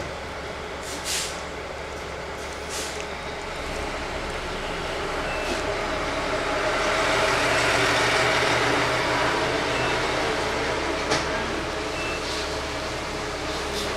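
A large vehicle's engine running, growing louder to its loudest about halfway through, then easing off. A few short sharp clicks sound over it.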